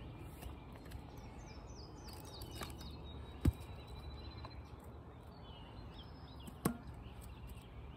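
Two sharp wooden knocks about three seconds apart, from splitting firewood, over songbirds chirping in quick falling notes.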